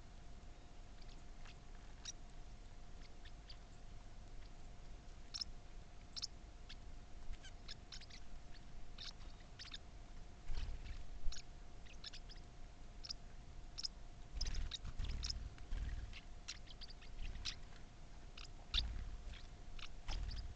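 Birds making scattered short, high chips and clicks, faint and irregular, with a few soft low thumps in the second half and a faint steady hum.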